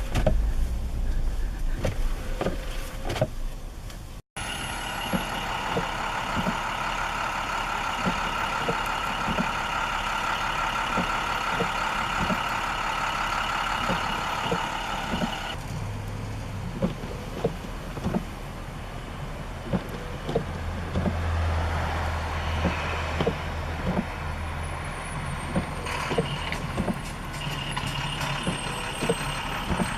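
Motor vehicles straining on an ice-covered street. A steady multi-pitched whine from about four seconds in to about the middle gives way to a lower engine rumble, with scattered sharp clicks and knocks throughout.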